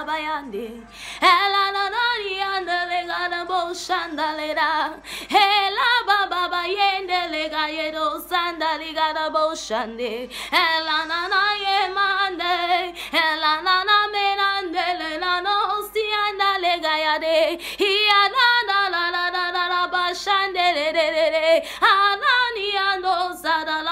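A woman singing a spiritual song unaccompanied, in long held phrases with a wavering vibrato and short breaks for breath.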